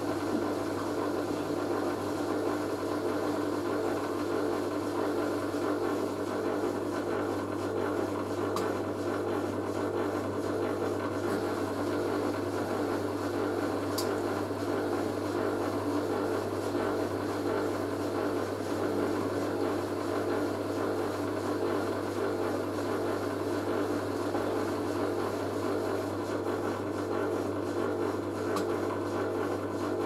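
Hoover A3060 Electronic 1100 front-loading washing machine, its drum coming down from a 500 RPM spin burst right at the start and then turning the load over in a slow tumble, the motor running with a steady hum. A couple of faint ticks are heard about a third and halfway through.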